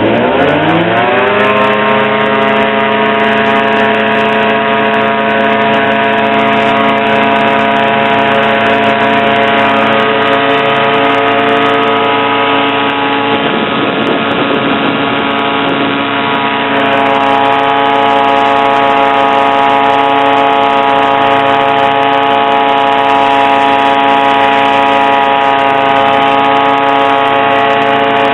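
HM-1000 Balerit ultralight's engine and propeller running up: the revs climb over the first second or two, then hold steady at high power, wavering briefly about halfway through.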